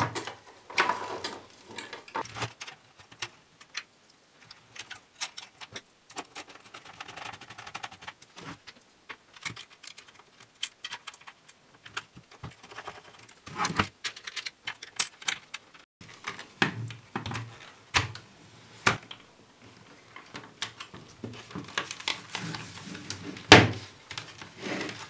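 Irregular clicks, taps and knocks of hard plastic and small parts being handled as a small colour CRT is fitted into its plastic TV casing. There are louder knocks about halfway through and near the end.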